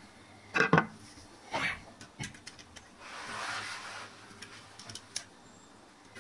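Hard objects knocking twice in quick succession, then a short scrape and a few light clicks, with a longer rubbing sound about three seconds in.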